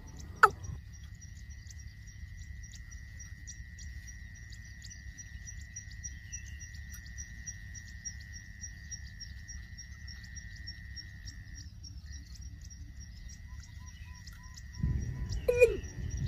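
Rural outdoor ambience: a steady high hum and a fast, high pulsing chirp over a low rumble. A sharp falling bird call comes just after the start, and a few more come near the end.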